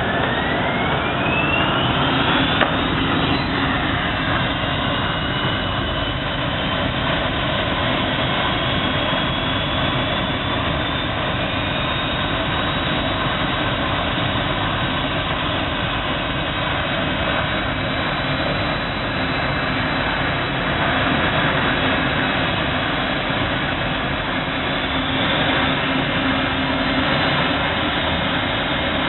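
A profile abrasive-blasting machine, loaded with corundum grit, running with a steady rushing noise. A motor whine rises in pitch over the first three seconds as the motor speeds up, then holds steady.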